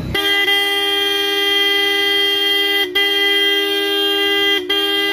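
A pair of Roots electric horns sounding together in a loud, steady two-note blare, being tested as they are wired in. It holds for about three seconds, cuts out for an instant, sounds for under two seconds more, cuts again and starts once more near the end.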